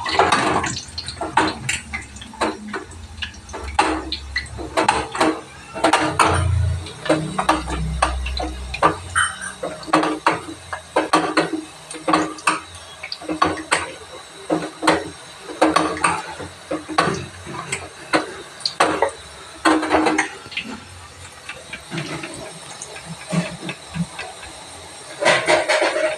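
Gathiya dough being rubbed by hand through a perforated steel ladle laid across a kadhai, the ladle clinking and scraping against the pan rim over and over, with the hiss of the strands frying in hot oil beneath. Near the end, a louder clatter as the fried gathiya are lifted out with a slotted ladle.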